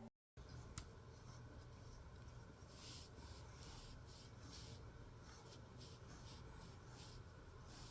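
Near silence in a small room, with faint, irregular scratching and rustling and a single sharp click about a second in.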